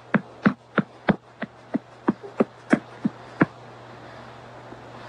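A hand patting a baby in a steady rhythm, about three pats a second, stopping about three and a half seconds in, over a low steady hum.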